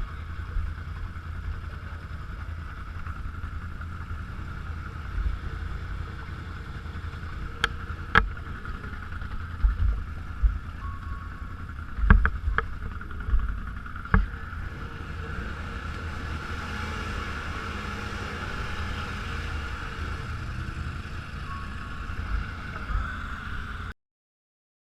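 Off-road vehicle running at a steady pace, with wind gusting on the microphone and a few sharp knocks and jolts from the ride. The sound cuts off suddenly near the end.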